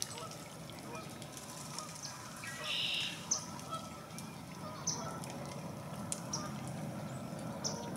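Chickadee calling: a few short, high, falling chips spaced a second or more apart, with a louder, rougher call about three seconds in. A steady low rumble sits underneath.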